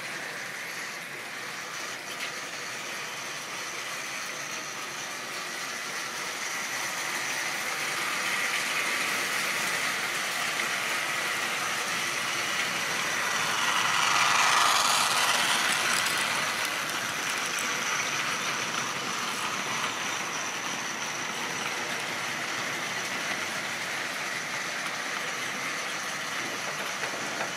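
A model railway train, a diesel shunter pulling a string of wagons, running along the track with the steady whir of its motor and wheels. It grows louder to a peak about halfway through as it passes closest, then fades.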